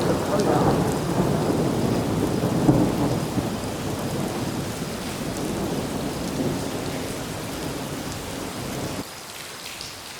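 Long roll of thunder over heavy rain, loudest at the start and slowly dying away. About nine seconds in the rumble drops off abruptly, leaving the rain.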